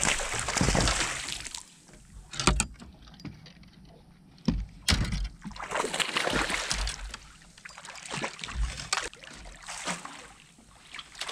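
A hooked bass thrashing and splashing at the surface beside the boat, in several bouts, the first and loudest right at the start. A few sharp knocks fall in between.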